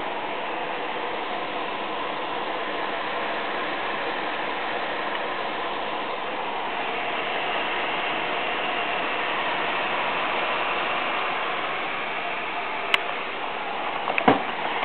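Cooling fans of a desktop PC with three GTX 580 graphics cards in SLI, running steadily under heavy load, with a faint steady tone in the noise. A couple of sharp clicks come near the end.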